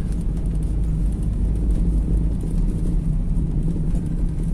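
Steady low rumble of a car on the move, heard from inside the cabin: engine and tyre noise with a faint steady hum.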